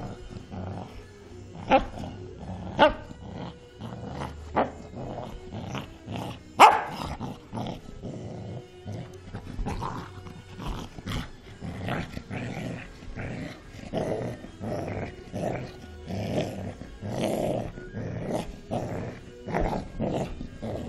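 Cocker spaniel growling almost continuously while play-fighting over a hand and rope toy, broken by a few short, sharp barks in the first seven seconds.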